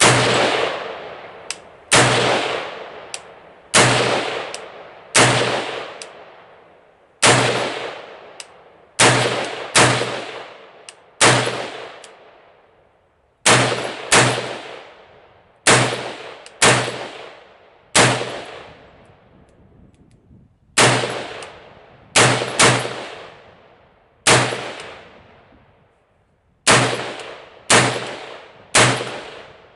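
AR-15 rifle firing single shots at a slow, uneven pace, about twenty in all, one to three seconds apart, each shot leaving a long ringing echo that dies away.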